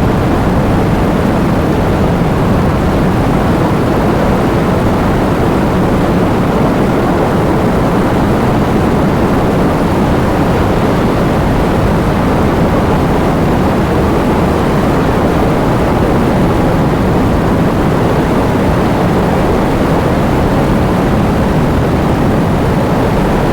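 Heavy rain with strong wind: a dense, steady rush of noise, heaviest in the low range, without let-up or separate drops.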